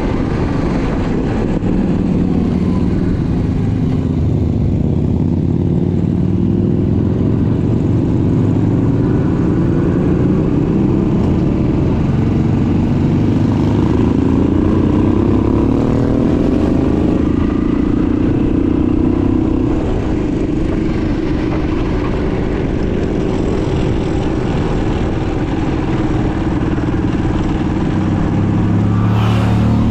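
Motor vehicle engines running, one rising steadily in pitch as it accelerates for several seconds around the middle, with a brief sharp noise near the end.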